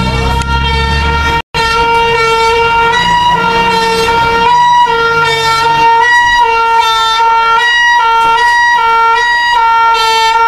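Emergency vehicle siren sounding a loud steady tone with no rise or fall in pitch. Its lower note cuts on and off about twice a second in the second half. The sound drops out for an instant about a second and a half in.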